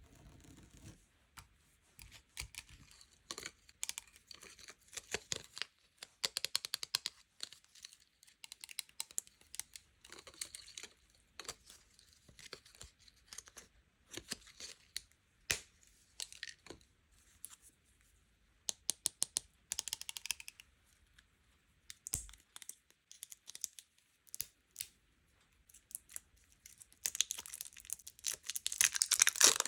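Plastic packaging being handled and torn open, with crinkling and a rapid scatter of small clicks and taps. The crinkling grows louder and denser near the end.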